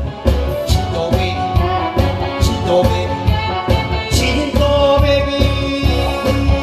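Korean trot song: a man singing into a microphone over a backing track with a steady drum beat.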